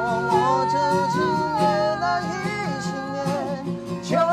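A Mandarin pop ballad sung over a strummed acoustic guitar. A long note is held with vibrato about the first second and a half, then the melody moves on.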